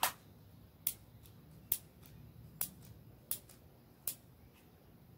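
A lighter being clicked six times, sharp clicks a little under a second apart, without catching.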